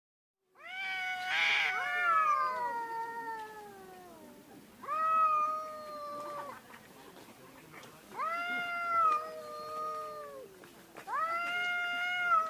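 Domestic cat giving four long, drawn-out meows. The first starts about half a second in and slides down in pitch; the other three are shorter and steadier.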